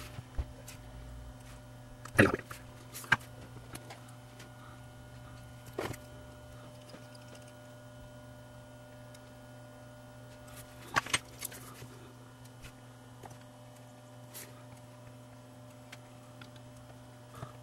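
Occasional sharp clicks and taps of small hand tools on a workbench while tiny surface-mount resistors are placed and soldered, over a steady low electrical hum. The loudest click comes about two seconds in, and a quick pair about eleven seconds in.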